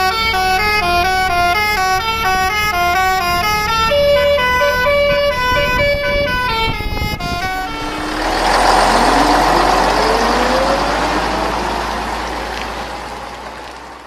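A multi-tone "telolet basuri" bus horn plays a quick tune of short stepped notes for about seven seconds. Then the sound changes abruptly to a loud rushing noise with a rising tone, which swells and fades away near the end.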